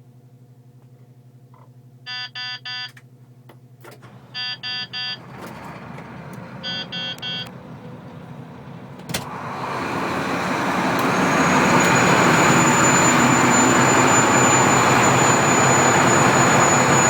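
Mack tandem-axle truck's diesel engine idling low, while three sets of three short electronic beeps sound. About nine seconds in, the engine is brought up and its sound swells over a few seconds, and a high, steady turbo whistle comes in a couple of seconds later and holds.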